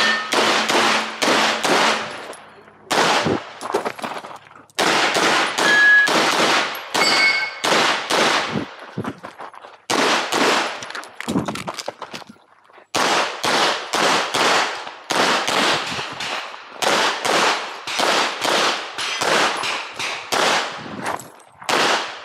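Glock 48 9mm pistol fired in rapid strings of quick pairs, each shot with a short echo, broken by a few pauses of one to two seconds. A couple of brief metallic rings sound between shots.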